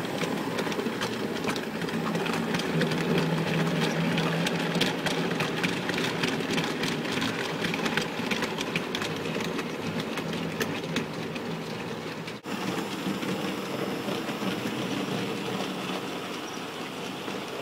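Bachmann OO gauge model steam locomotive and its wagons running past close by on the layout's track: a steady motor hum with the wheels clicking over the rail joints and pointwork. The sound drops out for a moment about twelve seconds in, then goes on a little quieter.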